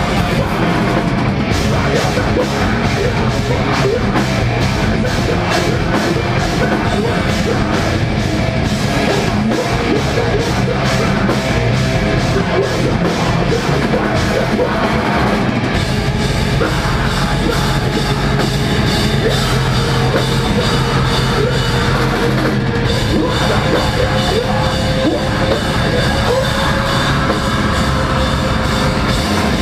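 Deathcore band playing live: heavily distorted guitars, bass and drums with harsh yelled vocals, loud and dense. Fast, even drum hits drive the first half, and the riff changes about halfway through.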